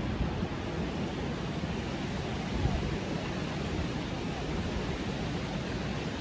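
Steady rushing noise of wind and surf, with wind buffeting the microphone in an irregular low rumble.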